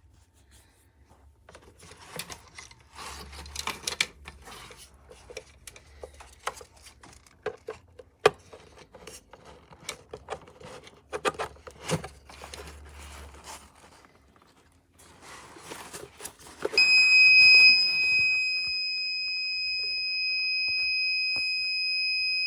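Scattered clicks and rustling of handling, then about three-quarters of the way in a loud, steady, high-pitched electronic beep tone starts and holds without a break until it cuts off sharply at the end.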